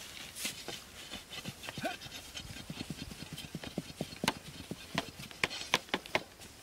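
Dry grass and brush rustling and crackling as it is pulled apart and struck with wooden sticks: a rapid series of sharp cracks and thwacks, loudest and densest about four to six seconds in.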